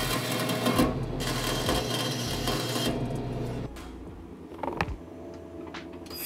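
Metal-cutting bandsaw running and cutting through a thin stainless steel rod, stopping about three and a half seconds in. A few light clicks follow as metal parts are handled.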